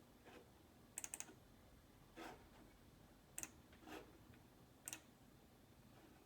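Faint, scattered keyboard clicks: a quick run of three about a second in, then four single key presses spaced about a second apart.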